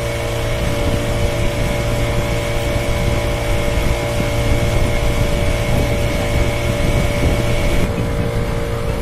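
Motorboat engine running steadily at a constant pitch. A high whine within it cuts out near the end.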